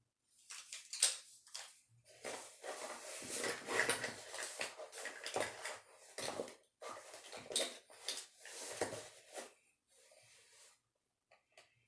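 Rummaging through makeup items: small objects knocking, clattering and scraping irregularly, dying away near the end.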